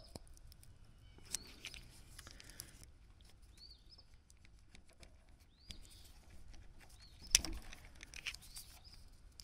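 Faint small clicks and scraping of a thin screwdriver working at a terminal clip in a plastic wiring connector, with one sharper click about seven seconds in. A bird chirps faintly a few times.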